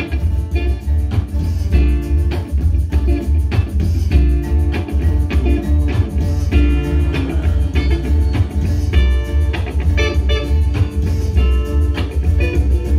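Steel-string acoustic guitar strummed in a steady, even rhythm through an instrumental passage, with a loud low bass part underneath.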